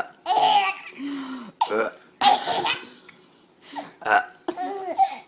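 A baby laughing in a run of short bursts, about half a dozen, with a few lower, gruffer sounds among them.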